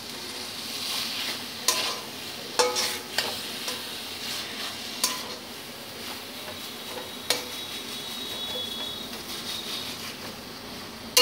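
Metal spatula stirring and scraping a dry banana-flower mash (mochar ghonto) in a metal kadai over the heat, with a soft steady sizzle. Every second or two the spatula knocks or scrapes sharply against the pan.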